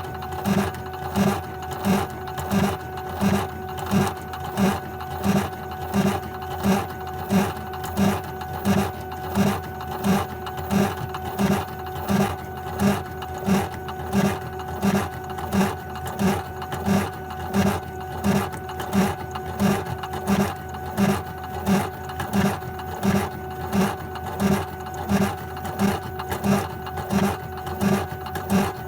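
Home-made CNC embroidery machine built from an old sewing machine on a CNC XY table, stitching: the needle mechanism beats evenly about one and a half times a second over a steady motor whine.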